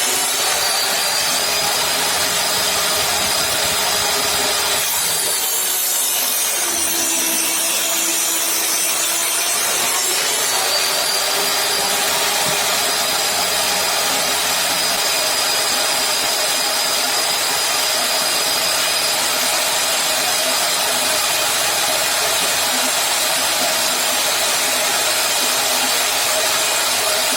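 An electric power tool running continuously as it works wood, with a steady motor whine. Its pitch sags under load for a few seconds, about five to ten seconds in, then recovers.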